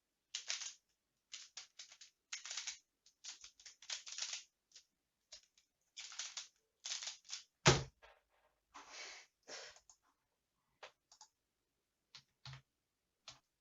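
Plastic Pyraminx puzzle being turned in quick, irregular runs of clicking, rasping twists. There is one sharp, loud knock a little past halfway.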